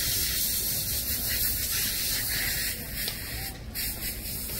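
Steady scraping hiss of skis sliding down a packed-snow slope, dipping slightly about three seconds in.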